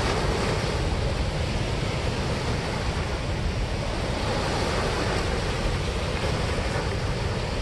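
Water rushing through a dam spillway, an even, unbroken rush of noise.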